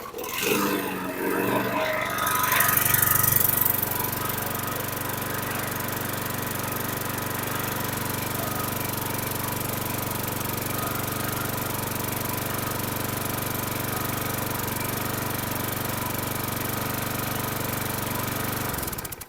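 Yard Machines walk-behind mower's 675-series engine pull-started: it catches and revs up in the first few seconds, then runs steadily at a governed speed the owner finds too low, and cuts out suddenly near the end when the blade brake bar is released.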